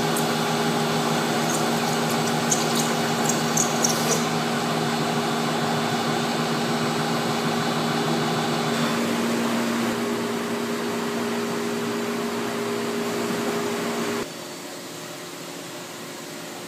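Machining equipment running steadily, a hum with hiss, with a few sharp ticks in the first seconds. About fourteen seconds in it drops abruptly to a quieter steady hum.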